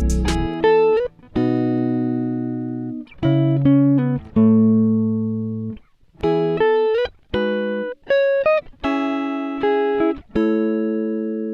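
Background music: a plucked guitar playing a slow melody of single notes and chords, each ringing out and fading, with short pauses between phrases.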